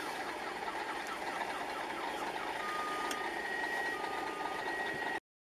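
Traffic and engine noise in a standstill traffic jam, picked up by a dashcam. A quick run of short repeated chirps comes first, then steady electronic beeps, one sounding twice and one held. The sound cuts off abruptly about five seconds in.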